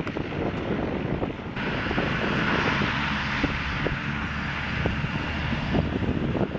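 Turboprop engines of a de Havilland Canada Dash 8 running as it moves along the runway, with a steady hiss that comes in abruptly about a second and a half in. Wind buffets the microphone throughout.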